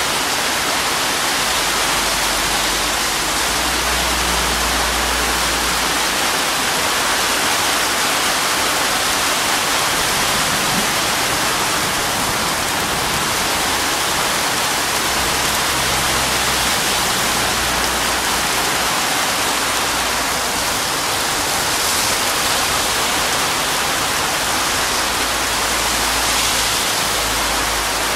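Heavy tropical downpour: a steady, dense hiss of rain pouring onto a road and pavement.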